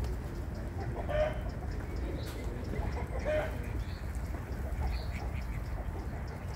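Fowl calling briefly, once about a second in and again just past three seconds, over a steady low rumble.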